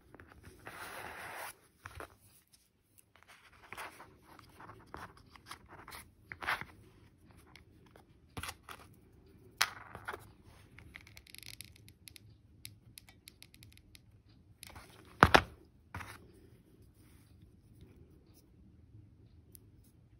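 Hands handling small shells and a hot glue gun on a cardboard work surface: a rustle in the first second or so, then scattered small clicks, taps and scrapes, with the loudest knock about 15 seconds in.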